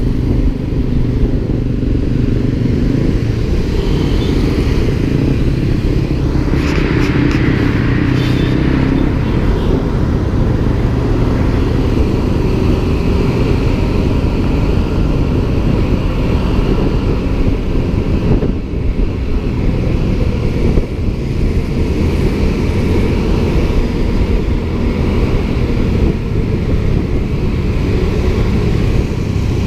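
Honda scooter's engine running steadily while riding through traffic, under a heavy low rumble of road and wind noise. A brighter hiss rises briefly about seven seconds in.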